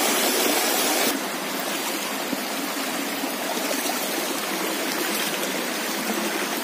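Shallow rocky stream running over stones: a steady wash of flowing water that drops a little in level about a second in.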